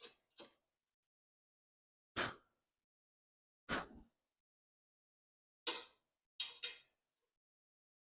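About seven short knocks and clicks, spaced irregularly a second or more apart: hardware and tools being handled and set down while screwing a wooden platform together.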